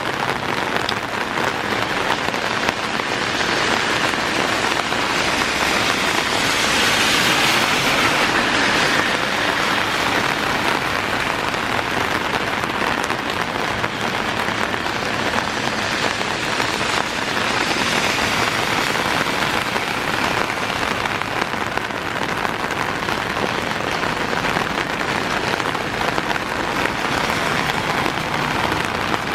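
Heavy downpour hissing steadily, with a louder swell of hiss a quarter of the way in and another past the middle, fitting cars driving by on the wet road.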